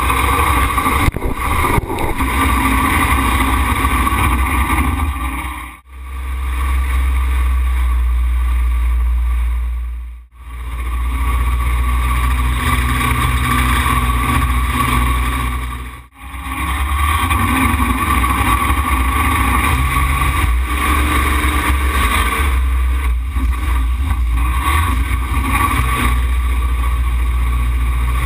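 Racing jet boat's engine running hard at speed, heard from the open cockpit. The loudness dips sharply three times, about 6, 10 and 16 seconds in.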